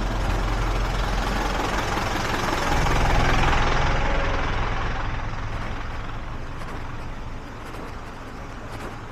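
A box truck's engine idling close by, a steady low hum with a rushing noise that swells about three seconds in and then fades away.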